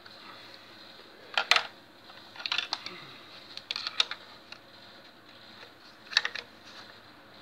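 Sharp metal clicks and taps of hand tools as a loosened diesel glow plug is worked out of the cylinder head: four short clusters of clicks, the loudest about a second and a half in.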